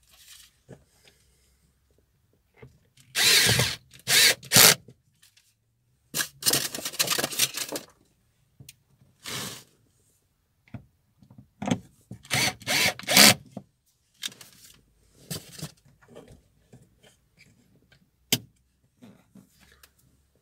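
Cordless screwdriver run in a series of short bursts with pauses between, driving the screws that hold the car's interior trim back in place after a tweeter install. A sharp click comes near the end.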